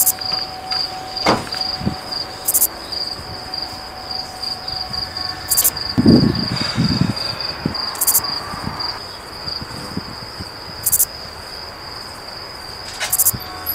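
Crickets chirping in a steady, high-pitched pulsing trill. A couple of dull thumps come about six seconds in.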